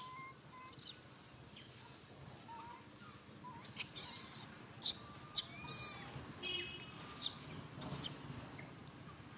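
Faint high animal chirps and squeaks with a few short sharp rustles, and a brief squeal about six and a half seconds in.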